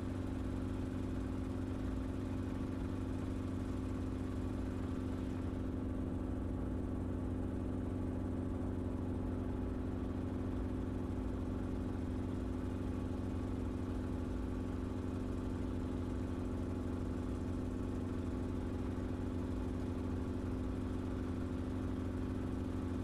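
Enstrom helicopter in flight: the steady, unchanging drone of its engine and rotor, a constant hum with no rise or fall.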